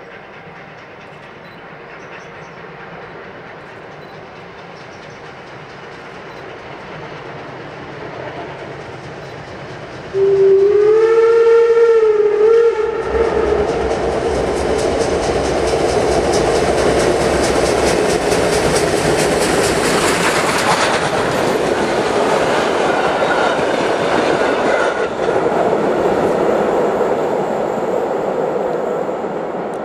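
German class 50 steam locomotive 50 2179 drawing nearer, growing slowly louder, then sounding its steam whistle once about ten seconds in: one wavering note lasting about two and a half seconds. It then runs across the steel river bridge with its train, a loud steady noise of working steam and wheels clattering over the rails.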